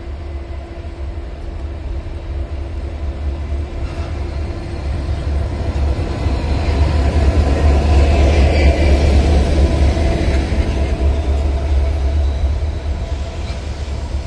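Diesel locomotive GM 1204 (UIC 92 53 0 64 1204-8) on a shunting move, its engine running with a deep rumble and steady hum as it approaches. It is loudest as it passes close by about eight seconds in, with a brief rise of wheel and rail hiss, then the sound fades as it moves away.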